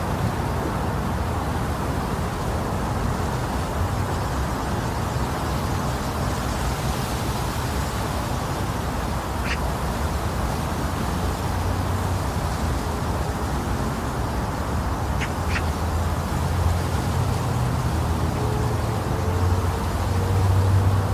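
Steady low rumbling noise from a white-noise track made to imitate the sound inside the womb, with a few faint short chirps partway through.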